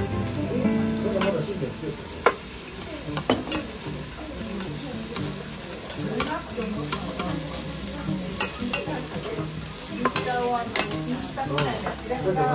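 Thick noodles sizzling on a hot teppan griddle while a metal spatula turns and chops them, with repeated sharp scrapes and taps of the spatula on the steel plate.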